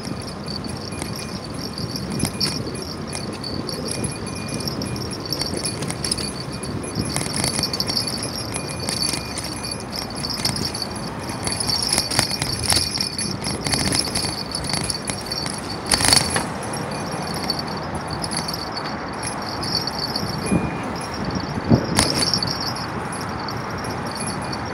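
Bicycle in motion on a paved bike path: steady road noise with a light metallic jingling rattle from the bike, and two sharp knocks, one about two-thirds of the way through and one near the end.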